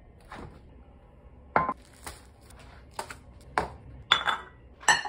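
A series of sharp knocks and clinks as food containers, among them a glass jar and a plastic tub, are handled and set down on a granite countertop. There are about six, some ringing briefly, with the loudest coming close together near the end.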